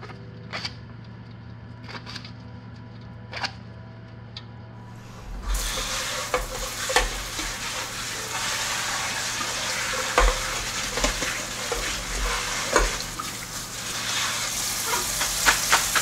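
Kitchen faucet running onto leafy greens in a metal colander, rinsing them: a steady spraying hiss that starts suddenly about five seconds in. Before it, a few light clicks over a low hum.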